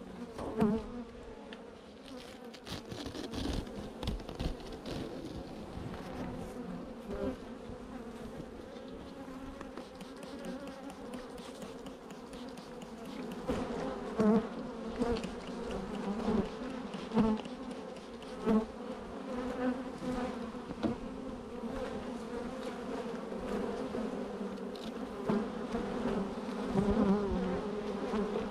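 Honeybees buzzing in numbers around an opened hive: a steady hum that swells louder every few seconds as bees fly close. The colony may still be agitated from being disturbed.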